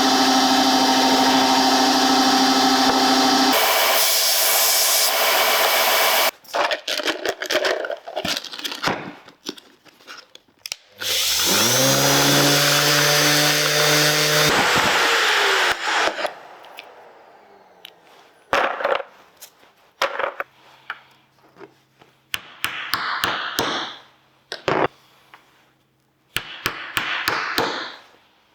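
Woodworking power tools running in short bursts on wood: a steady machine run at the start, an electric motor spinning up about eleven seconds in and winding down a few seconds later, and scattered knocks and clatter of work on wood in between.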